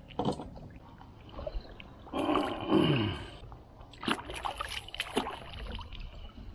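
Hands rinsing a freshly gutted fish in shallow seawater among rocks: a burst of splashing and sloshing about two seconds in, followed by a few sharp knocks and clicks from the handling.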